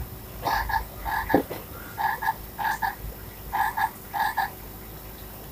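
Recorded frog croaks from a children's sound board book's small speaker, set off by lifting the frog flap: 'ribbit-ribbit' three times, each a pair of short double croaks. A brief knock about a second and a half in.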